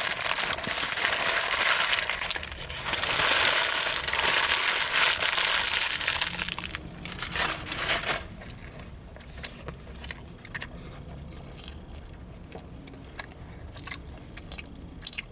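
Sandwich paper wrapper crinkling and crumpling for about eight seconds, pausing briefly once, then only faint scattered clicks of handling.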